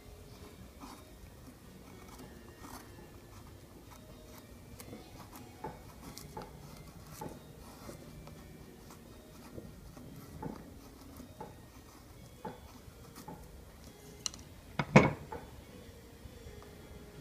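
A Mora knife blade shaving curls off a wooden stick in repeated short scraping strokes, carving a feather stick. Near the end, a sharp knock as the knife is set down on a wooden box.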